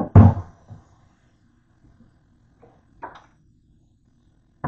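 Cookware knocking against the kitchen sink and counter as a colander and a nonstick frying pan are handled: a loud double knock at the start, then a few lighter knocks.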